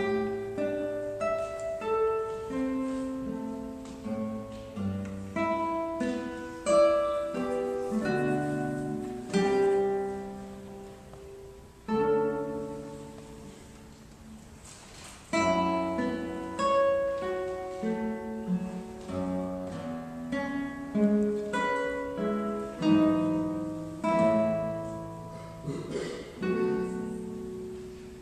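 A guitar quartet playing an ensemble piece, four guitars plucking interlocking notes and chords. About halfway through, one chord is left ringing and fading for a few seconds before the playing picks up again.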